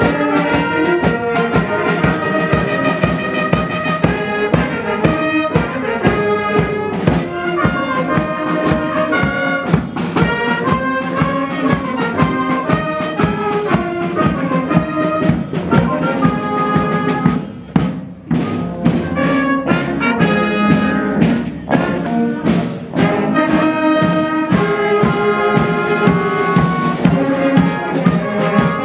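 A town brass band plays a march-like piece: trumpets and trombones over a steady bass-drum beat, with a short break a little past halfway.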